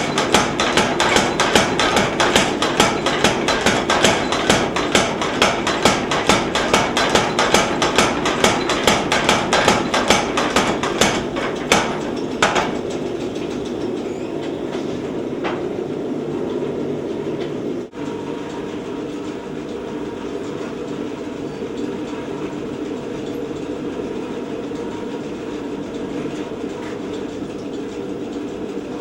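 Little Giant 50-pound power trip hammer pounding steel in rapid, even blows, about four or five a second, drawing out a bar to size. The blows stop about twelve seconds in, and the hammer's drive keeps running with a steady hum.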